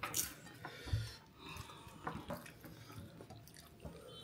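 Quiet sounds of a person eating rice with his hand: a few soft wet mouth clicks, with a dull knock on the table or plate about a second in.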